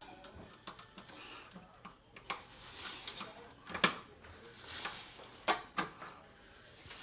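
Sharp metal clicks and scraping from pliers working a stuck oven door hinge latch, with four distinct knocks, the loudest near the middle.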